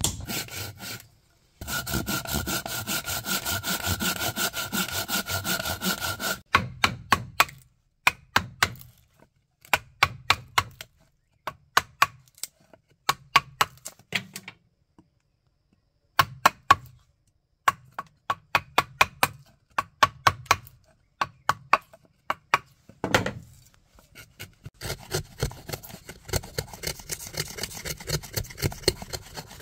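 Woodworking by hand on a log. First come about five seconds of continuous fast sawing strokes with a steady ringing note. Then a wooden mallet drives a steel chisel into the log in repeated bursts of sharp blows with short pauses, cutting out a notch, and fast rasping strokes on the wood follow near the end.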